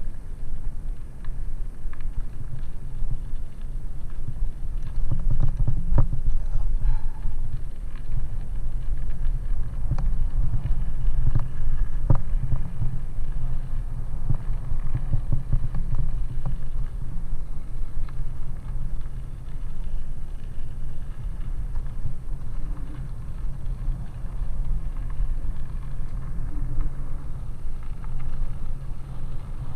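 A bicycle rolling over a gravel track, heard from a helmet-mounted camera: a steady low rumble of tyres and wind with scattered clicks and knocks as the bike jolts over stones.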